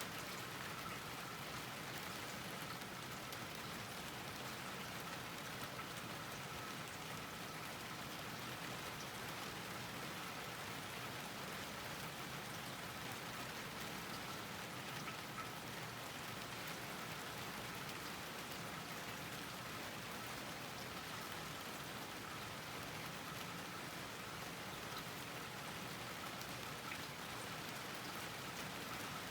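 Steady rain falling on a garden, a constant even hiss of drops with fine pattering ticks.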